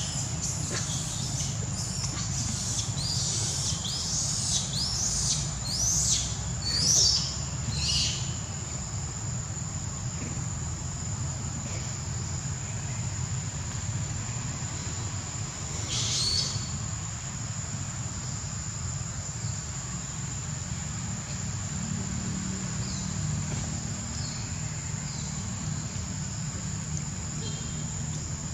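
Insects keeping up a steady high-pitched drone over a low rumble. A string of short, high chirping calls sounds over the first eight seconds, with one more about 16 seconds in.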